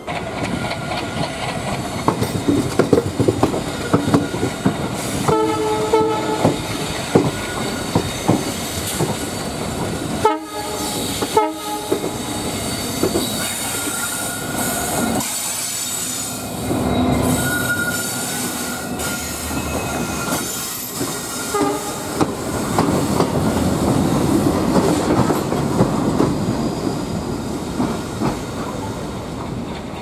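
Passenger coach wheels clattering over rail joints on a moving train. Diesel locomotive horns sound short honks about five seconds in and again twice around ten to twelve seconds in, from the twin WDG4 EMD locomotives being passed. A thin wheel squeal runs for a few seconds in the middle.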